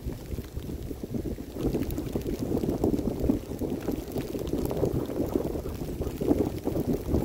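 A dog sled running over snow behind its team: a steady, rough rushing and crunching of the runners and paws in the snow, louder from about a second and a half in.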